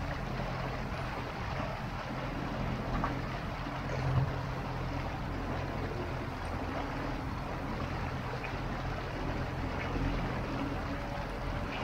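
Fishing boat's outboard motor running steadily under way, with water washing along the hull. There is a brief thump about four seconds in.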